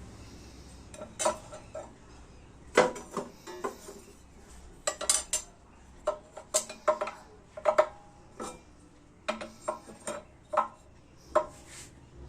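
Irregular metallic clinks and clanks with short ringing, about fifteen knocks spread unevenly: metal pieces knocking together as they are handled and set down. No machine is running underneath.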